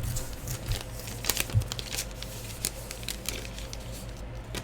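Trading cards and their wrappers being handled: scattered light clicks and crinkling rustles.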